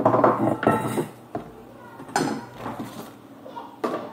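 A young girl talking in short phrases while working a lump of slime on a tabletop, with a few small clicks and knocks from her hands and the slime on the table.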